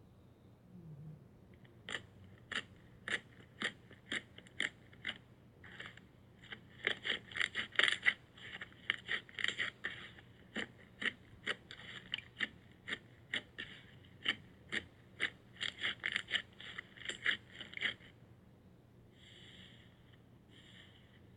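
Slime being squeezed and poked, making a run of sticky wet pops and clicks, about three a second, that starts about two seconds in and stops near the end, followed by a few softer squelches.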